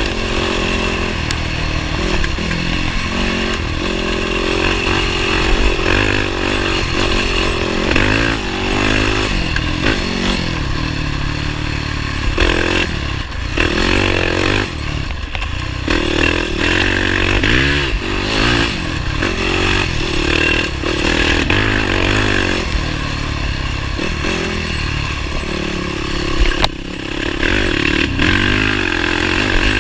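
Motorcycle engine running under way, its revs rising and falling every second or two, with a few brief drops in level.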